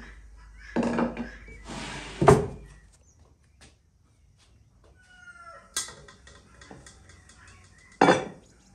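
A wooden drawer slides and knocks shut, followed by quieter handling of a metal mesh sieve and a sharp knock near the end. Chickens cluck faintly in the background.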